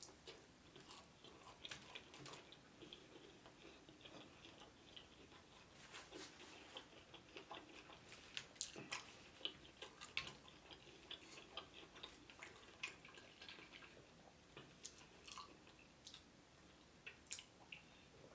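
Faint chewing of fried chicken, with scattered soft crunches and mouth clicks.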